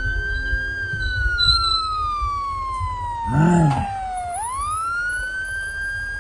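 Emergency vehicle siren wailing slowly: the pitch climbs, sinks gradually for about three and a half seconds, then climbs again, over a low rumble. A short voice-like shout cuts in about three and a half seconds in and is the loudest moment.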